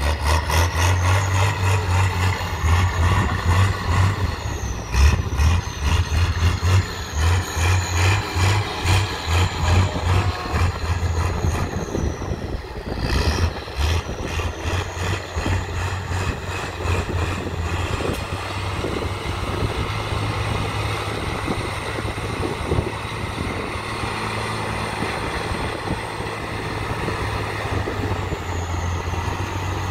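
Trial truck's diesel engine working hard through deep mud, revving in repeated surges for the first dozen seconds, then running at a steadier pull. A high whine rides above it, rising and falling with the revs.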